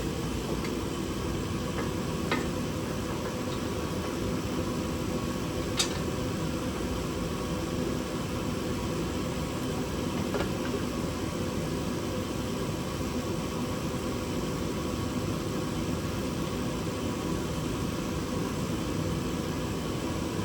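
Garage space heater running with a steady hum, with two light sharp clicks, about two and six seconds in, of small parts or tools.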